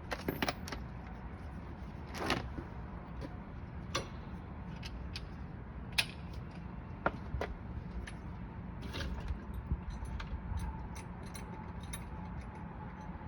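Scattered metallic clicks and clinks of hand tools being handled: a torque wrench and socket being readied for the lug nuts. The clicks are irregular, a few seconds apart, over a low steady background.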